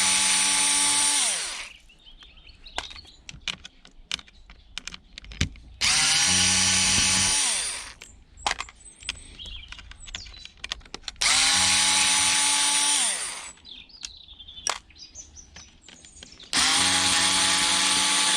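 Cordless electric drill-driver unscrewing screws in short runs: four runs of about two seconds each, every few seconds, each winding down in pitch as the trigger is released, with light clicks and clatter of handling between them.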